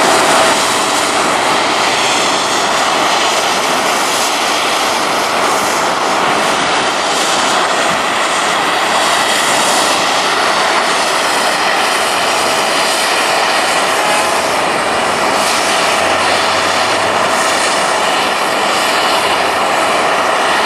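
Jet airliner engines running steadily: a continuous loud rush with a thin, steady whine on top.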